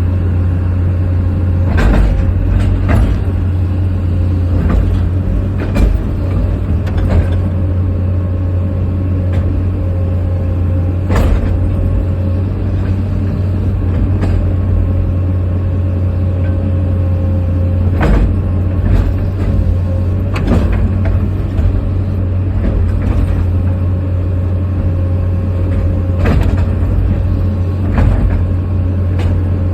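Heavy diesel engine running steadily with a constant low drone, with sharp metallic knocks or clanks every few seconds.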